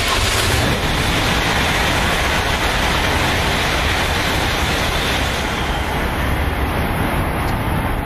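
High-speed train running, a steady rushing noise.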